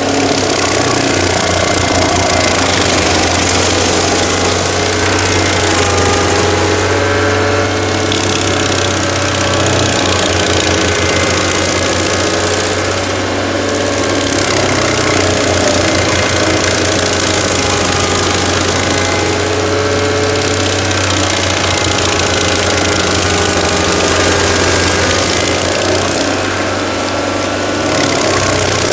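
Walk-behind stump grinder running under load, its toothed cutting wheel grinding into an oak stump: a steady engine drone with continuous grinding noise over it.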